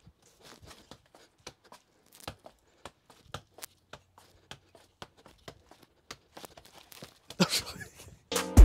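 Scattered light clicks and knocks with plastic crinkling as stored household items are handled, and a louder crinkling rustle near the end. Music with a heavy beat starts just before the end.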